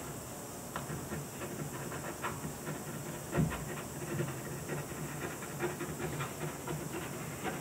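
Ballpoint pen scratching in quick, short strokes on drawing paper laid over inked plexiglass. A dull thump about three and a half seconds in.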